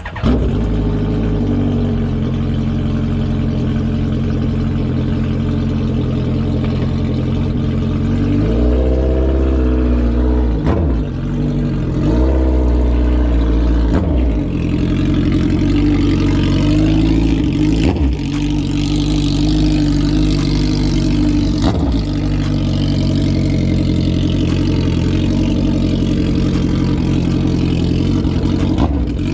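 2008 Suzuki Hayabusa's stock inline-four engine running throughout, loud and steady, with the revs rising and falling several times in the middle.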